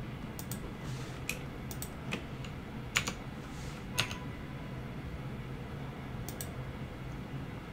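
Computer keyboard keys tapped now and then, about a dozen scattered clicks, the sharpest about three seconds in and another about four seconds in, over a faint steady hum.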